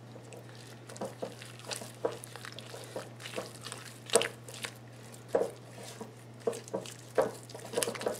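Silicone spatula stirring and scraping a thick cookie dough of creamed butter, sugar and egg around a glass mixing bowl, with irregular soft scrapes and taps about once or twice a second.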